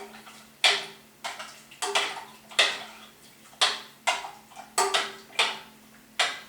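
A utensil stirring water in a cooking pot and knocking against the pot about every half second, each knock with a short ring.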